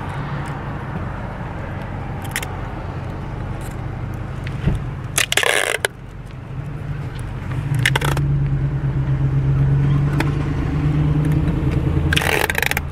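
Car engine and road noise heard from inside the car: a steady low hum whose engine note grows louder from about eight seconds in. Three short bursts of noise cut across it, at about five seconds, eight seconds and near the end.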